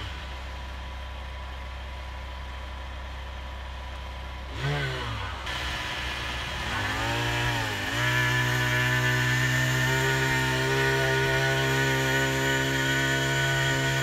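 Small gas engine of a vibrating power screed, revved up and down twice and then held at a steady high speed while the screed strikes off wet concrete. A lower, steady engine hum runs under the first few seconds before the revving.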